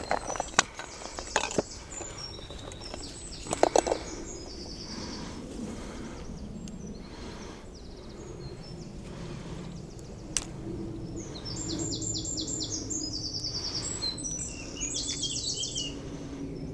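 A songbird singing in bursts of quick, rapidly repeated high notes, near the start and again through the second half. A few sharp clicks and knocks stand out in the first four seconds.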